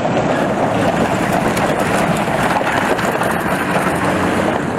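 Military pickup trucks driving past on a gravel road: loud, steady engine and tyre noise.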